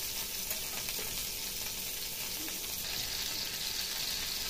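Pointed gourds (potol) shallow-frying in hot oil in a pan: a steady sizzle.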